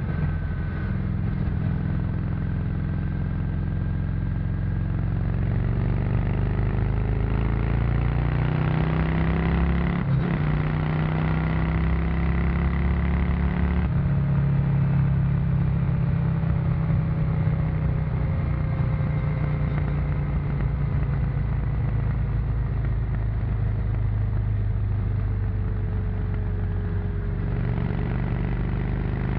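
Honda VT600C Shadow's V-twin engine through its stock exhaust, heard onboard while riding. It climbs in revs, breaks off briefly about ten seconds in and again about four seconds later as it changes gear, then runs steadily. Near the end it slowly drops in pitch as it slows.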